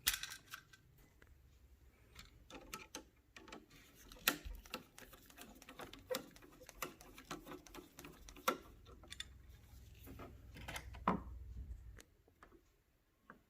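Irregular small clicks and taps of hands working on a wall switch and its wires, with a low rumble that stops about twelve seconds in.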